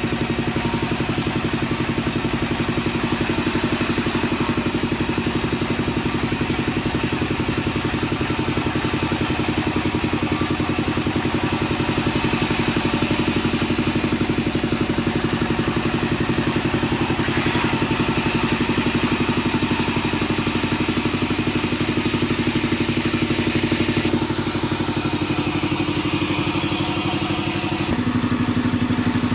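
Sawmill band saw machinery running with a steady, even hum. The hum drops slightly in pitch near the end.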